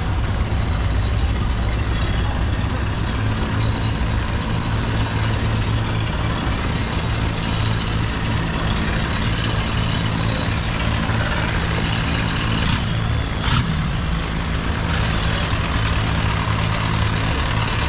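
Boat engines idling steadily, a low hum under a wash of noise, with two brief sharp knocks about two-thirds of the way through.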